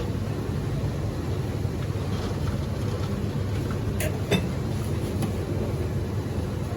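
Steady low rumble of restaurant background noise at a food serving counter, with two sharp clicks about four seconds in.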